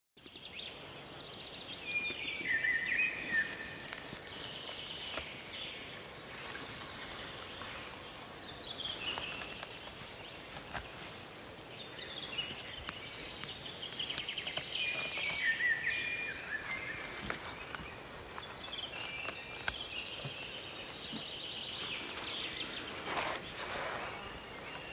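A songbird repeating a short, descending phrase several times, over a steady outdoor hiss. Rustling and small cracks of someone moving through undergrowth come in between, loudest near the end.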